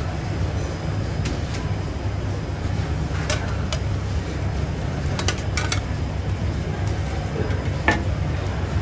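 Steady low roar from a hawker stall's wok stove, with a few sharp metallic clinks of utensils against the wok, the loudest about eight seconds in.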